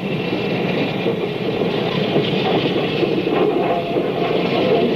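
Union Pacific 4000-class "Big Boy" articulated steam locomotive rolling past on the rails: a steady, unbroken train noise that grows slightly louder.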